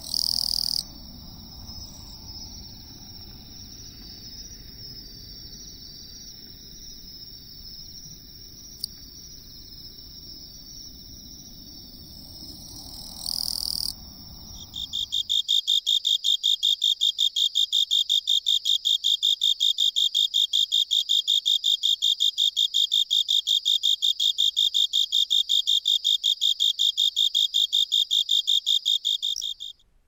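Western Japanese katydid (Gampsocleis buergeri) with a steady high insect drone behind it and two short loud buzzes, one at the start and one about 13 s in. From about 15 s a Japanese burrowing cricket (Velarifictorus micado) sings close up: a loud, even trill of rapid pulses, several a second, that stops just before the end.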